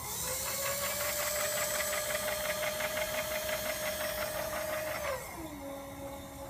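Servo power feed on the knee (Z axis) of an Acra Bridgeport-style knee mill, running. Its motor whine rises and settles to a steady pitch with a fast, even gear chatter. About five seconds in, it drops to a lower pitch.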